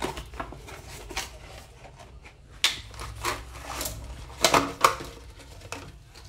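Hand-handling noise: a plastic bag crinkling and small parts clicking as a faucet hose fitting is unwrapped, with scattered clicks and two sharper knocks about four and a half seconds in.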